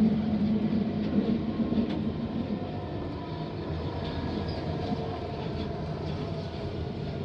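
London Underground Central line train (1992 stock) heard from inside the carriage: a steady rumble of wheels and motors. The noise and its low hum drop away over the first few seconds as the train slows for a station.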